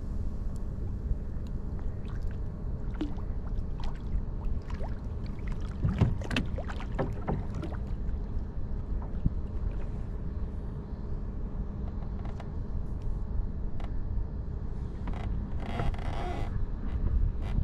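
Water lapping against a fishing kayak's hull with a steady low rumble, broken by scattered light clicks and knocks and a brief hiss near the end.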